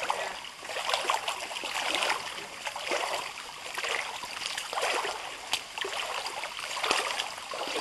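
Paddle strokes in shallow creek water: splashing and dripping that swell about once a second.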